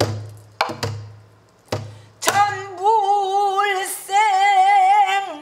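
Pansori singing by a woman who beats the time on a buk barrel drum herself: a few sharp drum strokes with a low ringing boom in the first two seconds, then a long sung note with a wide vibrato, broken by a short breath about four seconds in.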